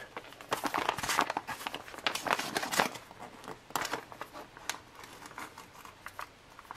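Foil retort pouch being handled and torn open: crinkling of the laminated foil with tearing, as irregular crackles that thin out near the end.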